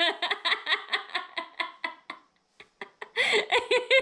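People laughing in quick, rhythmic bursts; the laughter dies away about two seconds in and starts up again near the end.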